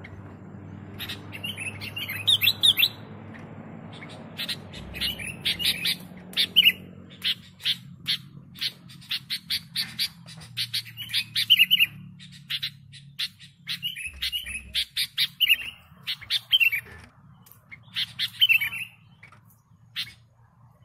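Sooty-headed bulbul (kutilang) singing vigorously: short phrases repeated again and again, stopping shortly before the end. A low steady hum lies underneath.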